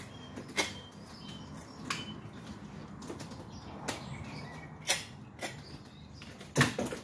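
A curved Victorinox knife cutting a hake fillet from the bone on a cutting board, with several sharp taps and knocks of the blade and the fish against the board, the loudest near the end.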